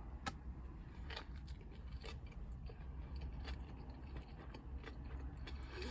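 Quiet chewing with scattered small mouth clicks and crinkles, over a low steady hum of a car cabin.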